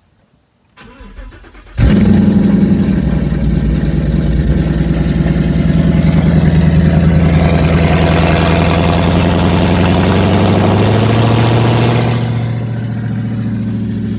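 Ford Mustang GT's 5.0 Coyote V8 cold-starting with no exhaust fitted behind the headers: a short crank, then it catches about two seconds in and runs loud and steady at a fast idle. Near the end the idle drops lower.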